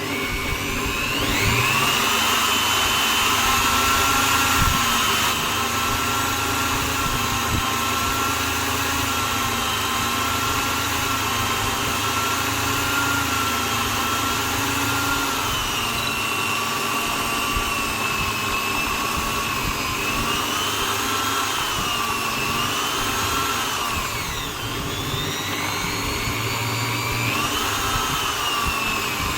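Electric drill motor running continuously with a whining tone whose pitch wavers, sagging sharply about three quarters of the way through and then climbing back.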